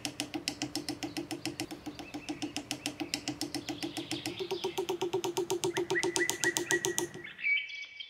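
Birdsong: a fast, even trill of about eight notes a second with short falling chirps over it. It stops about seven seconds in.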